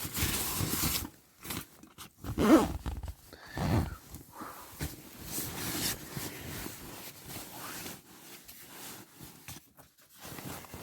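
Fabric rustling and handling noise inside a small tent, in irregular bursts as tent fabric and gear are moved about. The loudest burst comes about two and a half seconds in.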